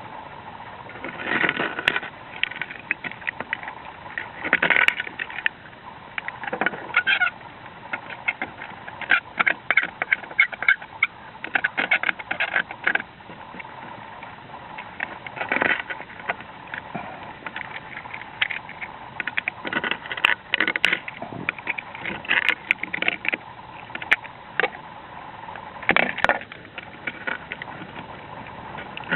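Irregular scraping, clinking and rattling of old roof tiles and their fixings being pried loose and pulled out, in uneven bursts with short pauses.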